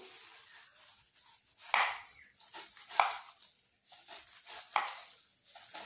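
Knife cutting into an onion: three sharp cuts about a second or more apart, with lighter knife sounds between.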